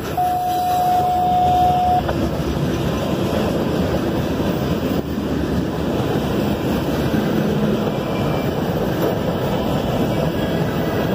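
Freight train rolling past, a steady loud rush and rumble of cars on the rails. A single steady high-pitched tone sounds for about two seconds near the start.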